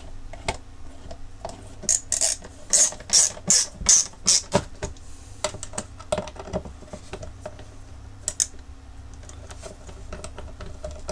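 Hands handling a xenon headlamp ballast module on a wooden bench: light clicks and taps, with a quick run of about seven short scratchy strokes between two and five seconds in and two more around eight seconds.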